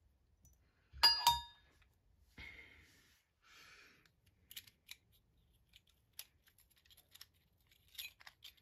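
Parts of a homemade ceiling-fan light kit being handled: two sharp ringing clinks about a second in, then two short scrapes, then scattered light clicks and taps.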